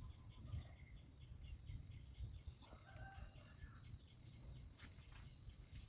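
Insects trilling, a steady high-pitched drone that does not let up, with a faint short call from another animal about three seconds in.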